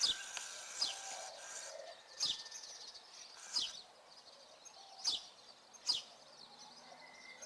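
A songbird giving short, sharp call notes that each sweep quickly downward in pitch, six of them at irregular intervals, over a faint steady background hiss.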